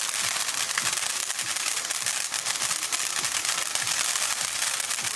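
SP22502 'Snowflake Silver Willow' ground fountain firework burning: a steady hiss of spraying sparks with dense crackling pops from its bursting stars.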